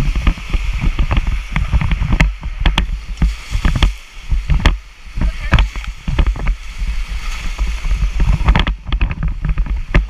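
Whitewater rapid rushing and churning around an inflatable raft, with many sharp splashes and knocks as the boat pitches through the waves.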